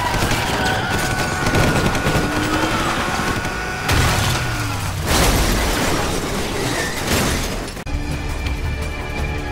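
Action-scene soundtrack: dramatic music under dense, noisy crashes and booms, with the heaviest impacts about four and five seconds in. Near the end it cuts suddenly to sustained music alone.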